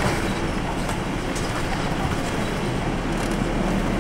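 Steady engine and road noise inside a Nissan Diesel Space Runner RA city bus (ADG-RA273MAN) as it drives along.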